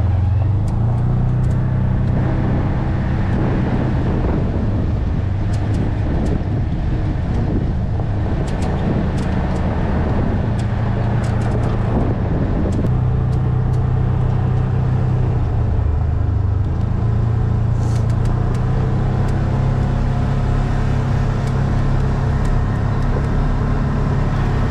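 Engine of an off-road side-by-side running steadily while driving on a dirt trail, its pitch stepping up and down a few times with the throttle, over road and wind noise, with scattered light ticks.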